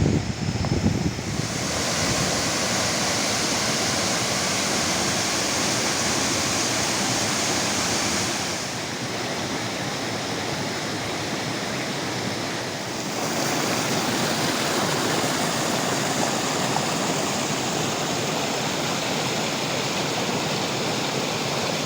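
Waterfall rushing steadily, with wind buffeting the microphone in the first second or so. The rush drops a little for a few seconds in the middle, then comes back up.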